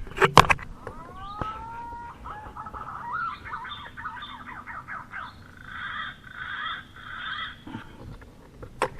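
Wild birds calling: a pair of rising whistled notes, then several seconds of rapid chattering and repeated calls. A couple of sharp clicks come just before the calls begin.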